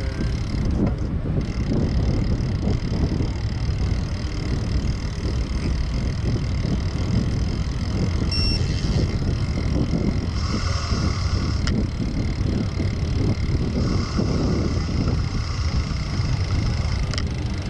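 Wind buffeting the microphone of a bicycle-mounted camera while riding, a steady low rumble mixed with road and tyre noise. Higher hiss rises briefly twice in the second half, and a very short high ring sounds about halfway through.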